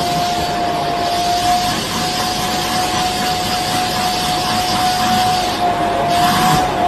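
Vacuum cleaner running steadily as its hose is drawn over a cat's fur: a constant whine over a rush of air.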